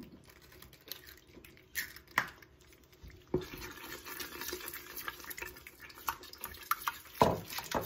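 Wooden spoon stirring a thick, wet, hot onion filling in a steel pot. The stirring makes a steady wet, crackling sound from about three seconds in, and the spoon knocks sharply against the pot a few times.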